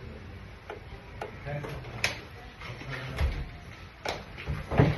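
Scattered sharp clicks and knocks, about six in five seconds at uneven spacing, typical of hand work in a repair shop, with faint low voices underneath.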